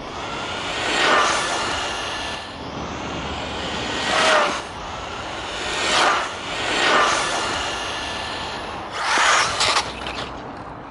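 HBX 901A RC buggy's Surpass Hobby 5900Kv brushless motor and geartrain whining at full speed, with tyre hiss on tarmac, as the buggy makes several high-speed passes, swelling loud about five times.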